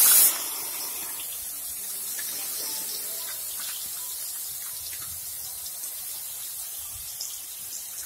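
Raw onion paste frying in hot oil with cumin seeds in a kadhai. It is loud at first as the paste hits the oil, then settles within half a second to a steady sizzling hiss.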